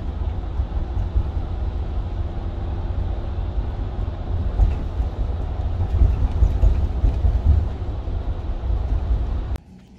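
Road and wind noise from a tow vehicle and trailer at freeway speed: a steady heavy low rumble with a rushing haze over it, cutting off suddenly near the end.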